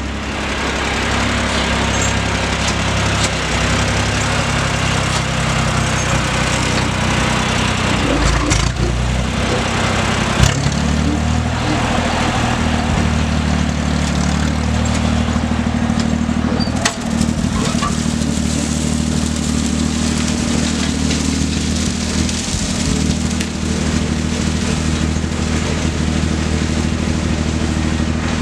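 A small engine running steadily at a constant speed, with a brief dip about two-thirds of the way through.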